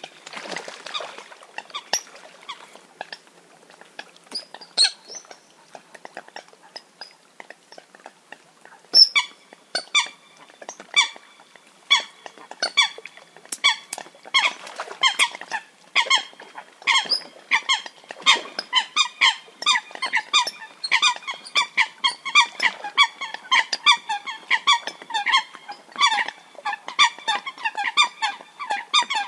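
Eurasian coots calling with short, sharp, repeated notes: scattered calls at first, then from about nine seconds in a rapid, almost unbroken series of several calls a second.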